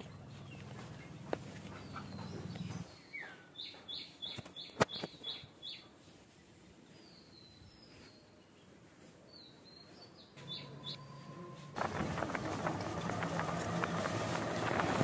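A bird chirps a quick run of short, falling high notes, then a few more. About twelve seconds in, a louder, crackly scraping starts: a hand-held vegetable peeler stripping the skin off a sponge gourd.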